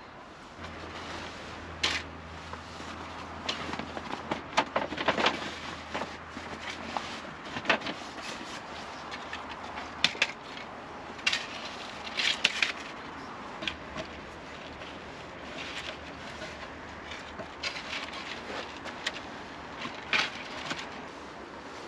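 Irregular knocks, clicks and clatter of hard objects being handled and set down, over a low steady hum.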